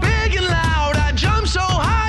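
Background music with a sliding, pitched lead over a steady bass.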